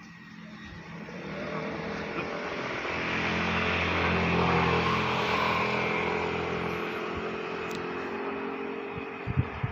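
A passing motor vehicle: its engine hum and road noise swell over several seconds, peak midway and fade away. A few sharp clicks come near the end.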